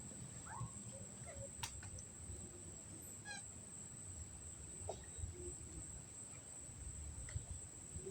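Night outdoor ambience: a steady high-pitched hum throughout, with a few short animal chirps and scattered faint clicks.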